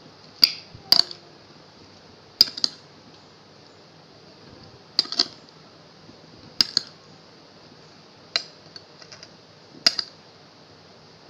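Metal spoon clinking against a glass bowl while stirring a chopped cucumber and pineapple salad: sharp clinks, often in pairs, every couple of seconds.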